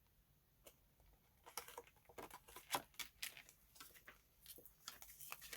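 Faint, irregular clicks and light rustling of small stationery items, cards and packaging, being handled, starting about a second and a half in.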